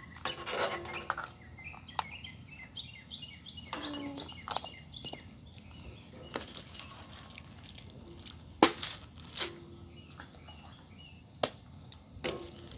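Soft strawberry putty-slime squished and stretched by hand: scattered small clicks, pops and crackles, with two sharper snaps in the second half, the first the loudest.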